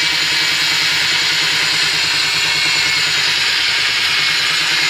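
Cordless angle grinder fitted with a finger-file belt sander attachment, running steadily as its narrow sanding belt grinds down a weld on a crankshaft. It is a loud, even grinding hiss with a high whine and a faint rhythmic throb underneath.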